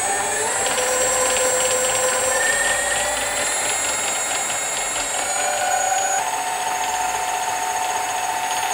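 Mini lathe running on a brushless motor driven by an ESC, giving a steady electric whine of several tones. The pitch rises over the first couple of seconds as the motor speeds up, then holds. About six seconds in it steps to a new pitch.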